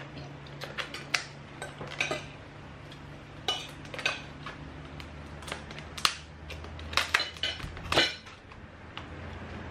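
Tableware handled during a meal: irregular sharp clinks and clicks of utensils against plates and dishes, a few louder knocks near the end, over a low steady hum.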